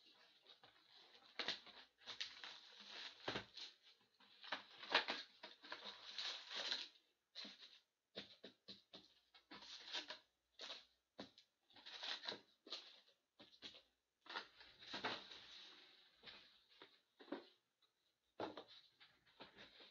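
A cardboard hockey-card hobby box being opened by hand and its foil card packs handled: an irregular run of faint scrapes, rustles and light taps.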